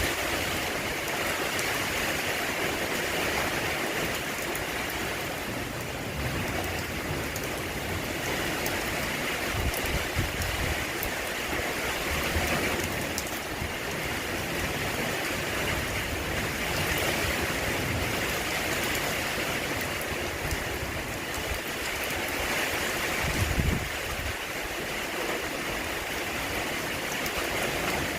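Steady rain falling, a continuous hiss, with a few brief low thumps.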